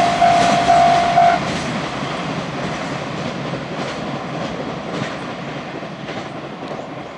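A level-crossing alarm rings in a pulsing steady tone and stops about a second in. Under it, a container freight train's wheels clack over the rail joints, fading steadily as the train moves off.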